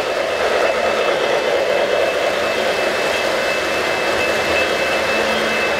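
O-scale model train rolling past on its track: a steady rumble of wheels on rail, with a faint, steady high-pitched whine over it.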